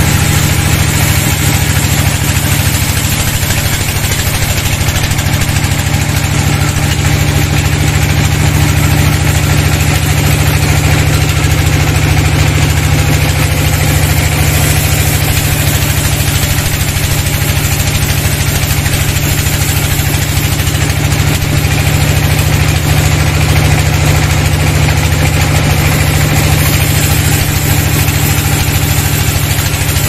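Large band sawmill running steadily with a constant low hum, its vertical band blade ripping lengthwise through a wooden slab.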